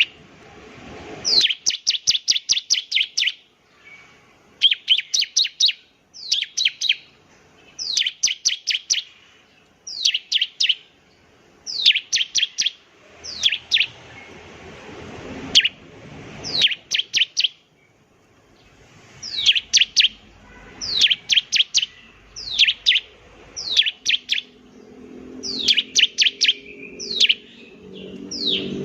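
Bar-winged prinia (ciblek) singing: quick bursts of three to seven high notes, each sweeping downward in pitch, repeated every second or two.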